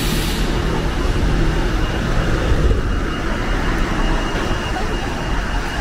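Road traffic on the street alongside: a steady rumble and hiss of passing vehicles.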